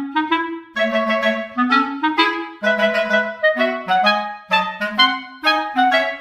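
Background music: a bouncy tune of short, detached notes led by a clarinet-like woodwind over a lower accompanying line.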